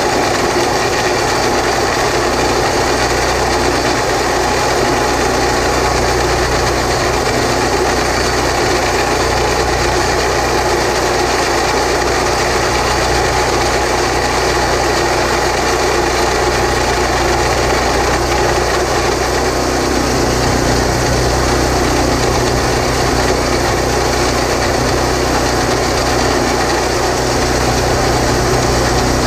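Horizontal boring machine running steadily as it turns the drill rod, pulling a 4 3/8-inch back reamer through a 10-inch concrete block, with the cutter grinding through the concrete. The machine's note shifts slightly about twenty seconds in.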